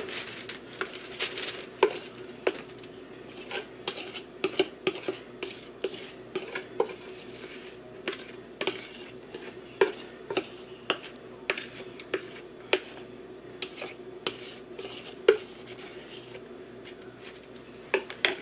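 A utensil clinking and scraping against a plastic bowl as seasoned corn on the cob and sausage pieces are scooped out onto aluminium foil: many short, irregular knocks and clicks over a steady low hum.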